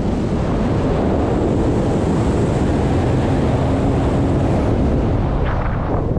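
Rushing airflow of a tandem paraglider in flight buffeting the action camera's microphone: a loud, steady wind roar.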